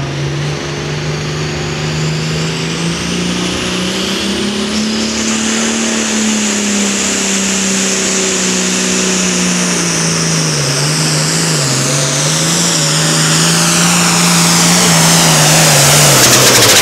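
Modified pulling tractor's engine running flat out under load on a hook, with a high whine riding above it. The engine pitch climbs in the first few seconds, then sags as the sled bears down, dips and recovers twice past the middle, and gets louder as the tractor closes on the microphone.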